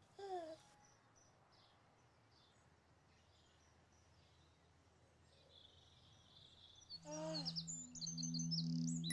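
A baby's short giggle with falling pitch near the start, then faint birdsong. About seven seconds in, gentle music starts with a downward sliding note and steady low tones.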